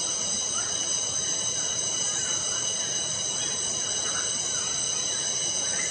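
Steady, high-pitched insect chorus of several unchanging tones, with faint short bird calls recurring underneath.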